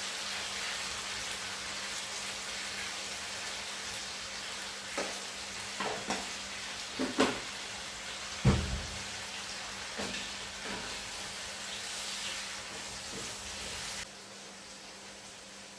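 Onions and tomatoes sizzling steadily in hot oil, with a spoon knocking and scraping the pan a few times as the mix is stirred; one knock about halfway through is louder and deeper. The sizzle drops sharply near the end.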